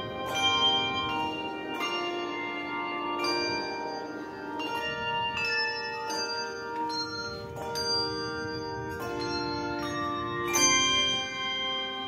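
Handbell choir playing a piece: chords of handbells struck about every second or so, each chord ringing on as the next is rung.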